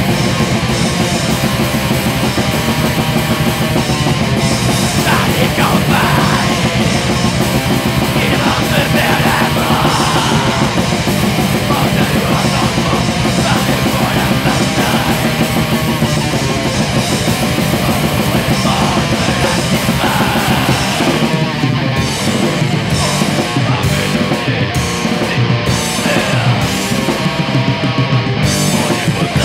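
Black metal music from a lo-fi demo recording: distorted guitars and fast, dense drumming, with harsh yelled vocals over parts of it.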